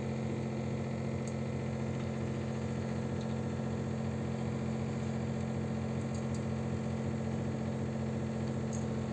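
Steady low motor hum that does not change, with a few faint light ticks.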